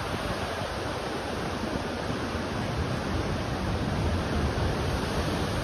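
Steady rushing noise of sea surf and wind at the shore, with a low, uneven rumble underneath.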